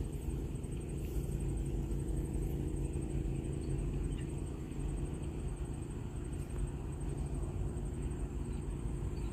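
Steady low outdoor rumble with no distinct events, only a few faint ticks.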